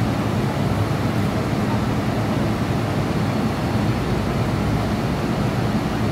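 Steady low rumbling hum inside a standing MTR M-Train car at a platform, with no distinct events.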